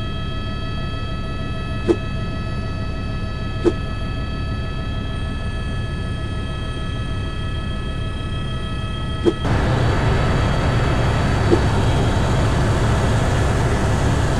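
Steady vehicle noise heard from inside: a low rumble with a high, even whine and a few faint clicks. About nine seconds in the sound changes abruptly and becomes louder and rougher.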